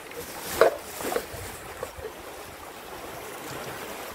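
Shallow river water rushing steadily past, with one loud, sharp sound a little over half a second in and a weaker one about a second in.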